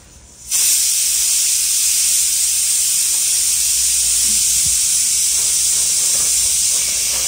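A loud, steady hiss that cuts in abruptly about half a second in and holds at an even level.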